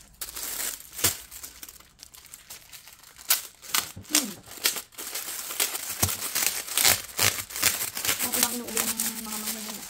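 Packaging being torn open and crinkled by hand as photo-folio sets are unwrapped, in quick irregular crackles. Near the end a voice holds a hummed note.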